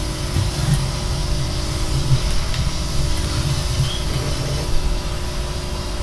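Coredy R750 robot vacuum running, a steady whir of its suction fan and brushes as it drives back to its charging dock.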